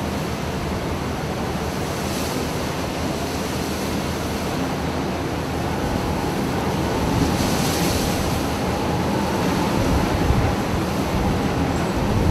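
Storm at sea: a steady rush of wind and heavy breaking waves, with a louder wash of spray about seven seconds in and a deeper rumble building after about ten seconds.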